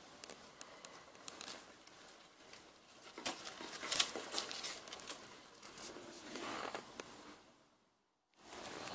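Faint rustling, crinkling and scattered light clicks from hands handling the foil-wrapped cardboard robot body and its jumper wires, busiest around three to four seconds in. The sound cuts out completely for a moment near the end.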